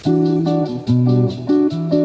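Background music: plucked guitar chords over bass, with a light steady beat, starting abruptly at the beginning.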